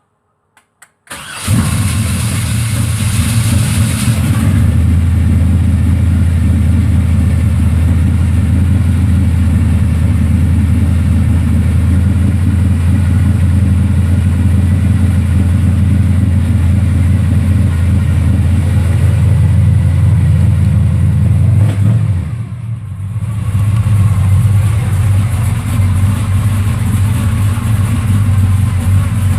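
Car engine started by a push-button start: a couple of light clicks, then it fires about a second in with a hissy rush for a few seconds and settles into a steady run. The level dips briefly about three-quarters of the way through, then the engine runs on steadily.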